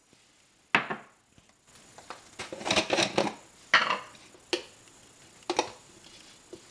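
Kitchen utensils knocking and scraping against a dish while ingredients are handled: one knock about a second in, a busier run of clatter around three seconds, then a few single knocks.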